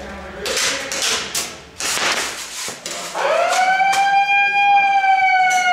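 Short noisy clattering bursts, then about three seconds in a loud siren-like signal tone starts, rising quickly to a steady high pitch and holding, sagging slightly in pitch near the end.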